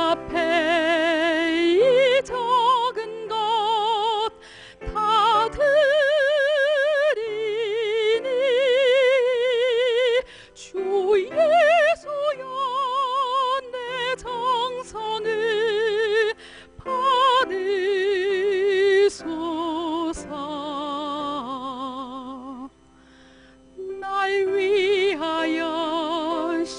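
A woman singing a Korean hymn solo with wide vibrato on long held notes, over a sustained soft accompaniment. There is a brief pause between phrases near the end.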